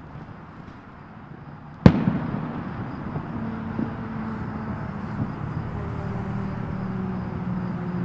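A single sharp firework bang about two seconds in, followed by a steady low drone that grows slightly louder.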